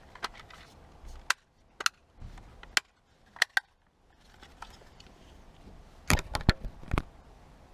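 Scattered sharp clicks and knocks of small hard parts being handled, with a quick cluster of them near the end.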